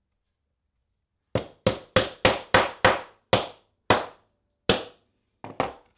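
Soft-faced hammer tapping dot position markers into an ebony fretboard: about eleven sharp taps starting about a second in, quick at first, then spaced further apart.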